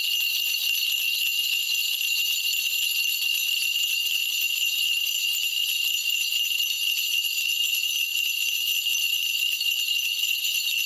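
Small bells jingling continuously in a steady, high, shimmering ring that neither rises nor falls.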